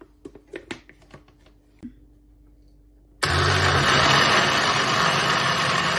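Kenwood countertop blender switched on and running at full speed, blending pineapple chunks, mint and water for lassi. A few light clicks from the lid being fitted come first, then the motor starts suddenly about three seconds in and runs loud and steady.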